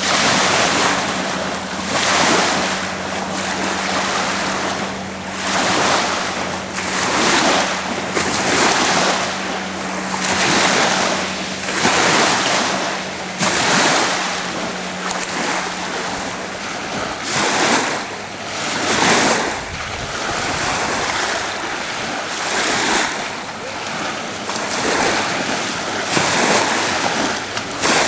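Waves breaking and washing on the shore, swelling and fading every second or two, with wind on the microphone.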